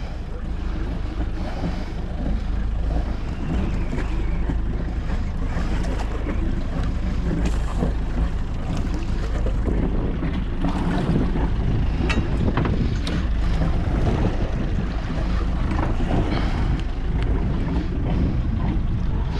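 Wind buffeting the microphone over the sound of sea water around a boat, a steady rushing noise, with a few faint clicks from gear handling about two-thirds of the way through.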